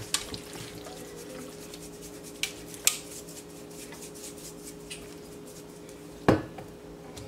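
A spice shaker of garlic being shaken over raw chicken pieces in a bowl, giving a few sharp clicks and taps, with a louder knock about six seconds in. A faint steady hum runs underneath.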